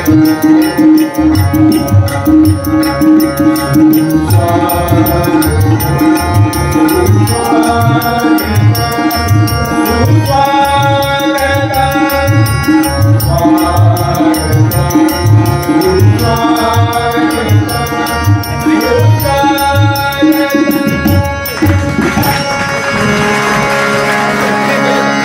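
Harmonium playing a melody over a steady beat of hand drums and small hand cymbals. About three quarters of the way through, the drumming stops and a held harmonium chord continues under a noisy wash.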